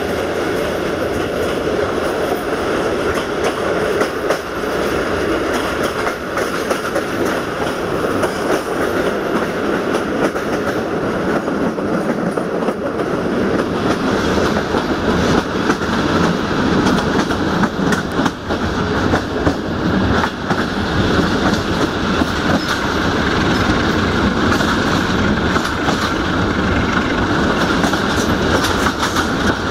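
Passenger train carriages running at speed behind a 060-DA (Sulzer LDE2100) diesel-electric locomotive: a steady rumble, with the wheels clicking irregularly over rail joints, heard from an open carriage window.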